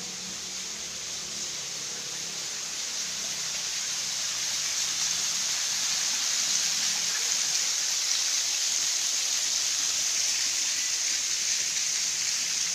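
Small waterfall splashing down a rock wall into a channel: a steady rush of falling water that grows louder over the first few seconds, then holds.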